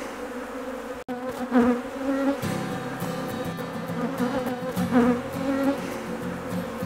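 Angry honeybees buzzing, several flying close past the microphone so the pitch swoops up and down. About two and a half seconds in, guitar music starts under the buzzing.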